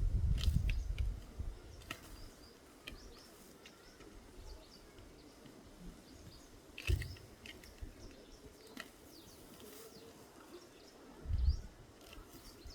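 Faint, scattered bird chirps over outdoor ambience, with a few brief low rumbles about 7 and 11 seconds in.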